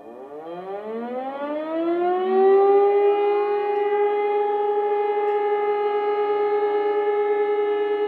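Civil-defence siren sounding the Austrian 'Sirenenprobe' test signal: it starts up with its pitch rising over the first three to four seconds, then holds one steady tone with several overtones.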